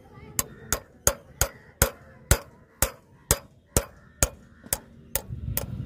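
A hammer driving a metal peg through the steel base plate of a cricket batting-drive stand into the ground, to lock the stand in place: about a dozen sharp strikes at a steady pace of roughly two a second.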